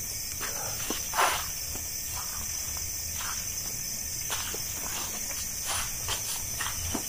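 Footsteps crunching irregularly through dry fallen banana leaves, the loudest step about a second in, over a steady high chorus of night insects such as crickets.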